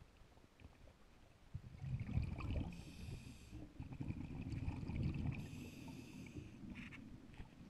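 Scuba diver breathing through a regulator underwater: a low rush of exhaled bubbles starts about a second and a half in and lasts several seconds, with two short hisses carrying a thin whistle from the regulator.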